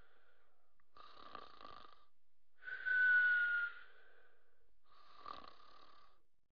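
Soft snoring: three snoring breaths about two seconds apart, the middle one the loudest and carrying a thin whistle that falls slightly in pitch.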